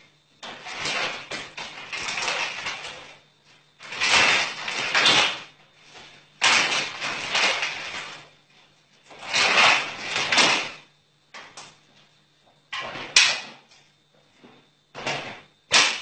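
A vacuum cleaner's cord yanked again and again like a lawn mower's pull-start rope, each pull a rasping rush of a second or two, several pulls a few seconds apart with the last ones shorter. No motor catches.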